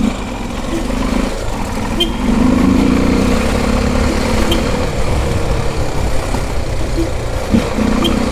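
Honda XR250 Tornado's single-cylinder four-stroke engine running at low speed, with a steady engine hum and low rumble that grows louder about two seconds in.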